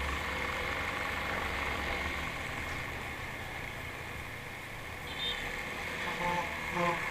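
Engine and road noise inside a moving car: a steady hum and rumble, heavier for the first couple of seconds, then easing. Near the end come two short pitched sounds.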